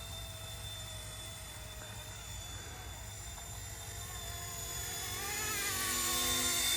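RC Era C189 MD500 remote-control helicopter in flight: a steady electric motor and rotor whine that grows louder in the second half, its pitch wavering up and down.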